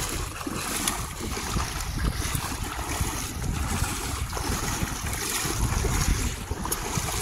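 Wind rumbling on the microphone over the wash of shallow seawater, with small splashes as people wade through it.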